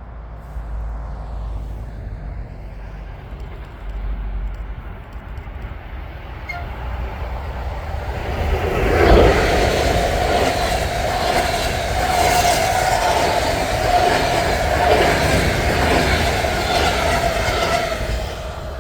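A train passing close by, building from about eight seconds in to a loud, steady rush with a held tone, then dropping away near the end.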